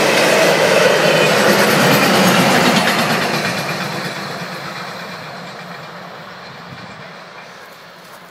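Freight train of loaded log wagons rolling past on the rails, then going away: the noise stays loud for about three seconds and then fades steadily as the last wagon moves off.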